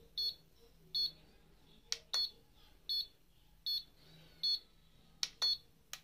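Handheld home HIFU facial tightening device beeping as it fires along the skin: short, high beeps about every three-quarters of a second. A couple of sharp clicks fall between them.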